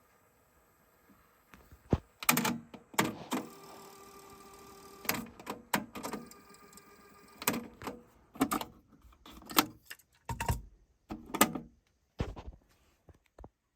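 Clicks and clunks of a JVC TD-W503 dual cassette deck being operated, its transport keys and cassette doors snapping, with a short steady mechanism whir partway through.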